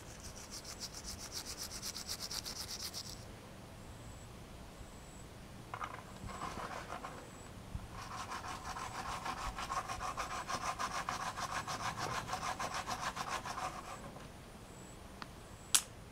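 Quick back-and-forth scrubbing strokes on a computer case, about five or six a second, in a short spell at the start and a longer one in the second half. A single sharp click comes near the end.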